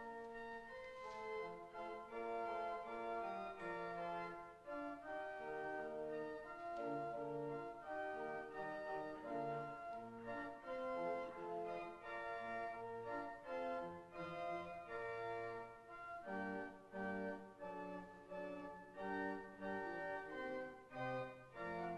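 Church organ playing sustained chords, with notes moving above and below them, and no voices.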